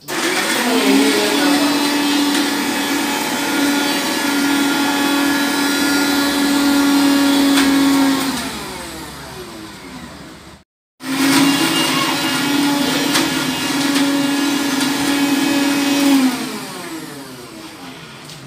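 Electric mixer grinder grinding soaked chana dal into vadai batter: the motor spins up to a steady whine, runs about eight seconds, then is switched off and winds down. After a short break it runs again for about five seconds and winds down once more.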